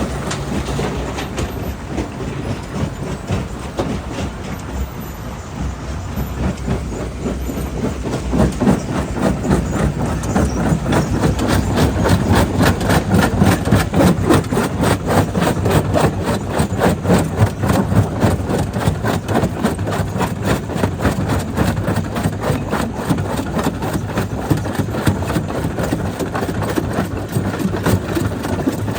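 Jaw crusher crushing black stone: heavy machinery running steadily with a dense, rapid clatter of rock breaking in the jaws, growing louder about eight seconds in.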